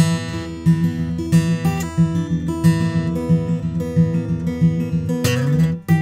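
Martin D-42 Sinker Mahogany dreadnought acoustic guitar (Adirondack spruce top, sinker mahogany back and sides) played solo: a steady picked pattern of evenly repeating bass notes under ringing higher notes, with a bass note sliding upward about five seconds in.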